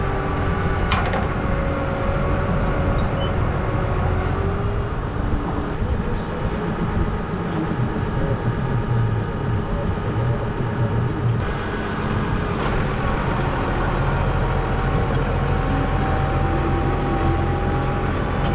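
Farm tractor's diesel engine running steadily while a manure spreader is hitched up, with a few light metal clinks at the hitch in the first few seconds. Its note shifts about twelve seconds in, as the tractor is set to move off.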